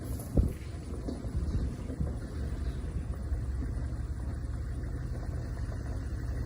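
Vehicle running on the road, a steady low rumble, with a single knock about half a second in.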